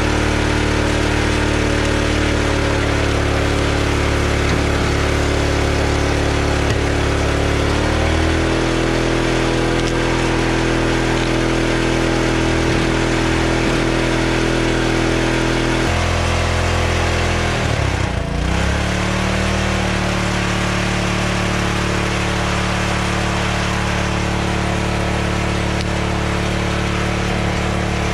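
Small gas engine of a hydraulic log splitter running without let-up, its speed shifting a few times and dipping sharply about two-thirds of the way in before picking back up. The owner puts the unsteady speed down to broken throttle and governor linkages.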